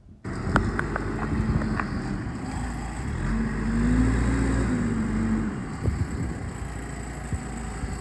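Manitou MLT634LSU telehandler's turbo diesel engine running as the machine drives across the yard, the revs rising about halfway through and then dropping back. A few sharp clicks sound in the first two seconds.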